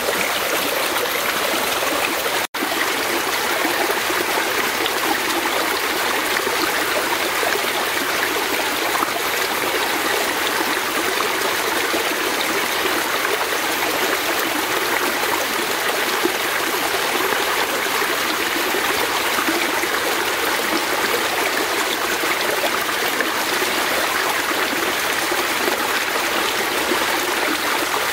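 Fast-flowing forest stream rushing and splashing steadily over its bed, an even unbroken wash of water noise. The sound cuts out for an instant about two and a half seconds in.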